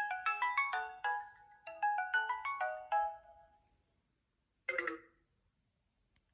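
Mobile phone ringtone melody: quick, clear notes played in two short phrases, then a brief fragment about five seconds in that cuts off abruptly.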